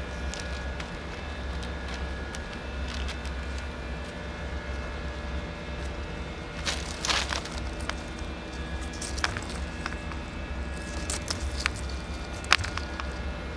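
Rolled PEX water line being handled and dragged over sandy ground, with scattered crackles and scuffs, a denser rustle about halfway and a sharp click near the end, over a steady low hum.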